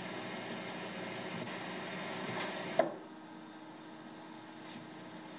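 A thrown hatchet hitting a wooden board: one short, sharp thunk about three seconds in, over a steady hum and hiss. It is heard as an old tape played back through a television speaker.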